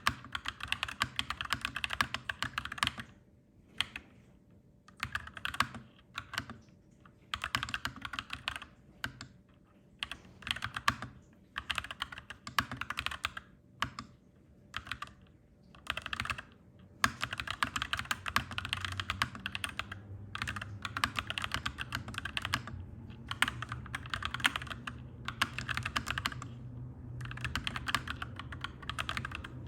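Clacky mechanical keyboard typing in fast runs of keystrokes, broken by brief pauses. A low rumble sits underneath and grows stronger about halfway through.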